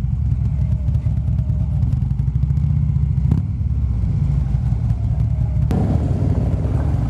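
Harley-Davidson V-twin motorcycle engine running steadily at low speed as the bike rolls slowly, with a single short click about three seconds in. From about six seconds in, a second Harley touring bike close by adds to the engine noise.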